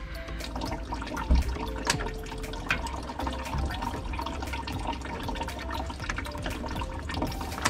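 Coolant pouring and trickling out of a disconnected radiator hose into a drain pan, a steady splashing of liquid with a few sharp clicks and knocks from the work.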